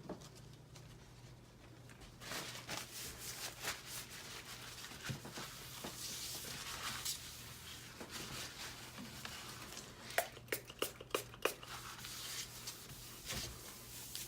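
Faint handling sounds on a work surface: rustling and wiping, with a quick run of light clicks and knocks about ten seconds in.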